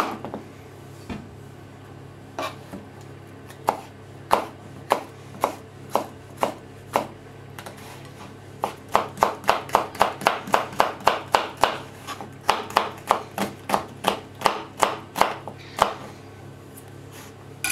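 Chef's knife cutting a red bell pepper on a plastic cutting board: a few separate cuts, then from about nine seconds in a quick even run of chops, about three a second.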